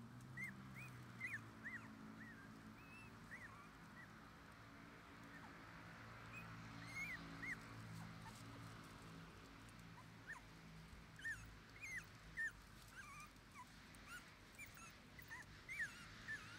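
A three-week-old Shiba Inu puppy whimpering in faint, short, high squeaks that come in scattered clusters.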